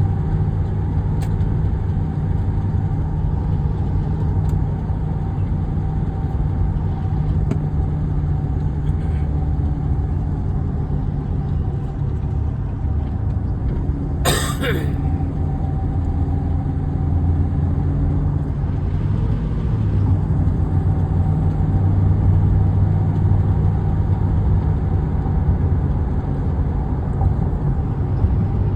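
Steady low hum of a car on the move, road and engine noise running evenly, with one brief sharp click about halfway through.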